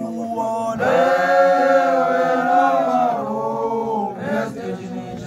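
A group of voices singing a chant-like song together in long held phrases. One phrase starts about a second in and a second, softer one follows about three seconds in.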